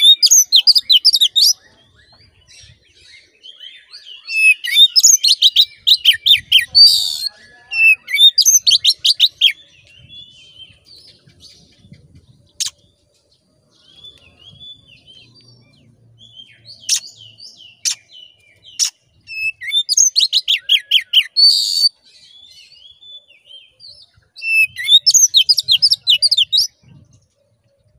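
Oriental magpie-robin (kacer) in full song: about six loud bursts of rapid, repeated whistled notes, each one to three seconds long, with quieter twittering and short calls between them.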